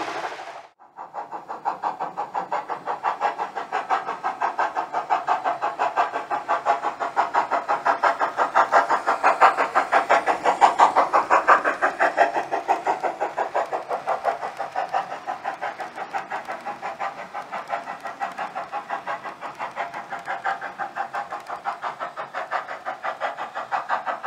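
Sound-decoder steam locomotive exhaust chuffing in a quick, even rhythm, imitating the LNER W1 'Hush Hush' 4-6-4. It starts about a second in after a brief gap, swells louder partway through, then eases off.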